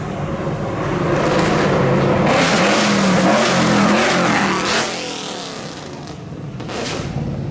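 Supercar engine revving hard as the car accelerates away. The sound builds over a couple of seconds, is loudest for a few seconds, then drops off sharply about five seconds in, with a smaller swell near the end.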